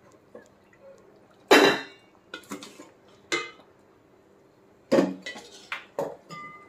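Perforated metal ladle clanking and scraping against a stainless steel pot while a curry is stirred: a string of sharp metallic clinks with a short ringing tone, the loudest about one and a half seconds in.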